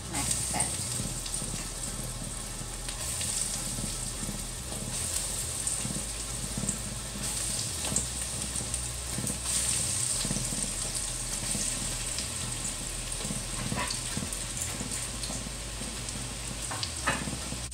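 Breadcrumb-coated chicken meatballs sizzling and crackling in shallow hot oil in a nonstick wok, with a few light knocks as balls are set into the pan.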